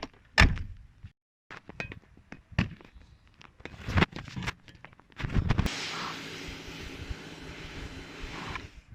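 A few clicks and knocks, then about five and a half seconds in a pressure washer starts: a steady spray hiss over a low motor hum, which cuts off suddenly just before the end.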